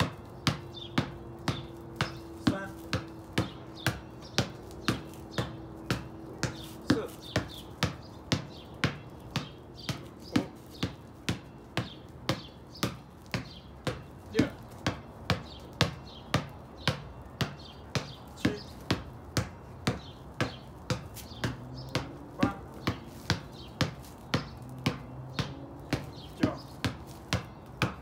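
A ball being hit over and over: sharp strikes at a steady pace of about two a second, part of a routine of a hundred hits.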